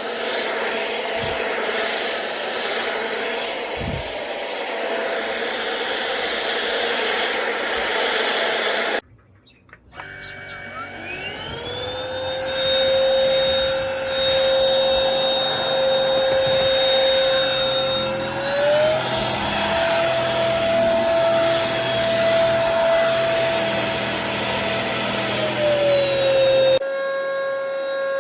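DEVOAC N300 cordless stick vacuum running with a steady whine. Around nine seconds in it cuts out briefly, then its motor spins up with a rising whine and settles. About halfway through it steps up to a higher-pitched, higher speed setting, then drops back down near the end.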